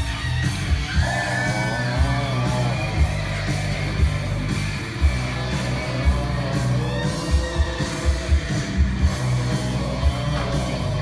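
Rock music with a steady drum beat, electric guitar and a shouted, sung vocal.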